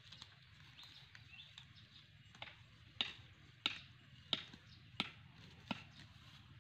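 A stake being hammered into the ground to tether a cow: six sharp strikes about two-thirds of a second apart, starting about two and a half seconds in.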